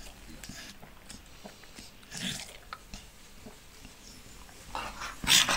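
American Staffordshire terriers play-fighting on a bed: quiet mouthing and scuffling noises, with a louder, noisy burst near the end.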